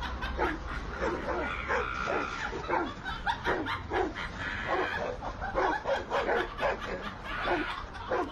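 Dogs barking at each other through a gate, a rapid run of sharp barks, about two or three a second.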